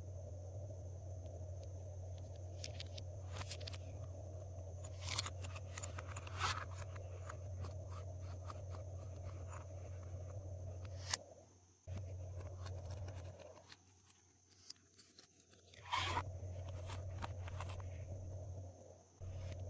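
Glossy slime being handled, giving scattered sticky clicks and crackles over a steady electrical hum that drops out for a few seconds past the middle.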